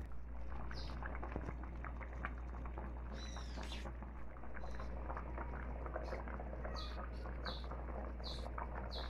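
A pot of fish curry simmering on a gas burner, a dense steady bubbling crackle over a low hum. Short high-pitched chirps come through several times.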